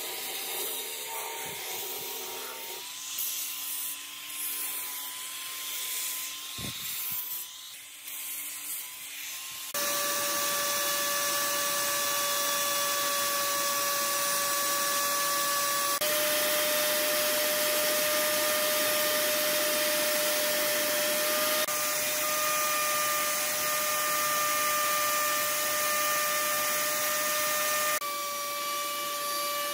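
For about the first ten seconds an electric angle grinder with a sanding disc runs against particleboard, its motor whine wavering as it is pressed and moved. Then the sound switches abruptly to an electric plunge router running at a steady, louder high whine while its bit cuts into the particleboard, with a few sudden jumps in the sound along the way.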